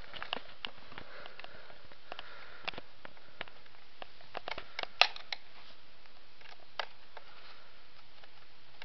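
Light, scattered clicks and taps of an Allen wrench working the stock screws out of an airsoft rifle, with a sharper click about five seconds in, over a steady hiss.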